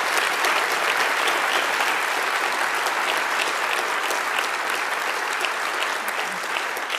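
Audience applauding: dense clapping at a steady level that starts to ease off near the end.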